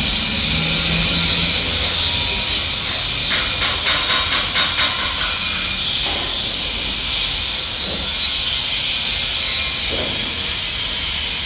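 GTM-1800 wood chipper running: a loud, steady mechanical noise with a hissing edge and a low rumble. A quick run of rapid rattling clicks comes about three to five seconds in.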